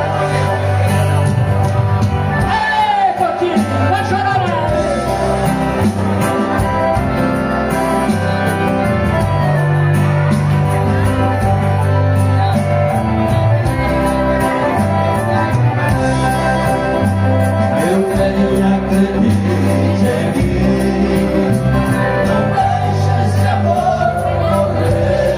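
Live band music led by a piano accordion, over a stepping bass line and a steady percussion beat, with a voice singing at times.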